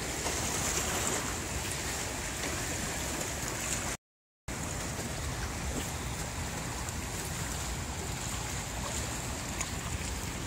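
Steady rush of turbulent white water pouring out below a dam into the tailwater. The sound cuts out completely for about half a second around four seconds in.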